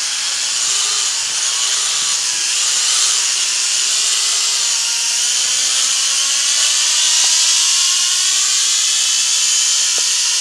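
W606-5 Flanker toy quadcopter's motors and propellers whining steadily in flight, several pitches wavering slowly as the motors adjust speed.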